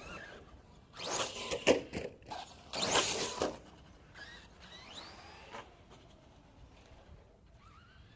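1/8-scale electric RC truggy on a 6S LiPo with a 2000kv brushless motor, driven in throttle bursts. The motor whines up in pitch as the throttle comes on, and there are two loud scrabbling bursts of tyres on the ground about one and three seconds in.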